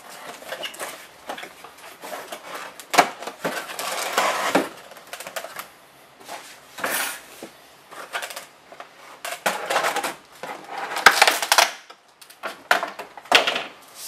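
Cardboard box and plastic packaging being handled: irregular rustling and scraping as the box is opened and a plastic tray lifted out, with several sharp clicks and knocks.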